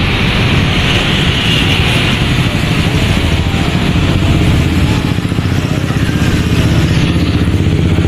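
Motorcycle engine running steadily while riding, with wind noise over the microphone and street traffic around.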